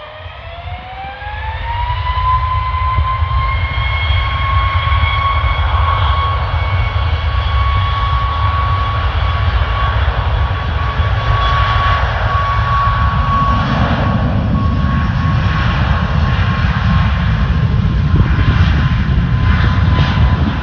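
Boeing 737 jet engines spooling up to takeoff thrust. A whine rises in pitch over the first two seconds, then holds as a steady high whine over a loud, heavy rumble as the airliner rolls down the runway.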